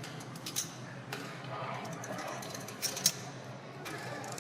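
Casino floor ambience: a steady background murmur of voices with a few sharp clacks, the loudest a quick pair about three seconds in.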